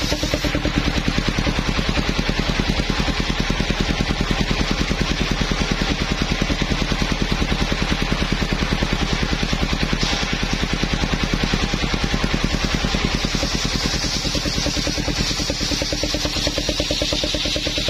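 Engine of a mobile circular sawmill running steadily with a rapid, even beat. A brighter hiss builds over the last few seconds.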